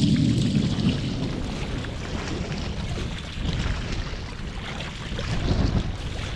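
Headwind gusting across the microphone in a low rumble, over water lapping and splashing against a paddled canoe in choppy open water.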